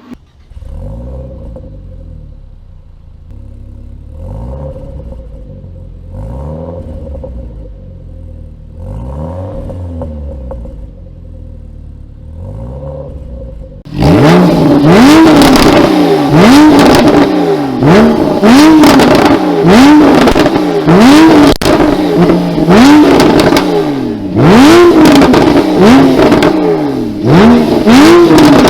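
A car engine revved over and over by blips of the throttle, its exhaust crackling and popping as each rev falls away. About halfway through it cuts to a much louder car revving faster, about once every second and a half, with dense sharp cracks from the exhaust.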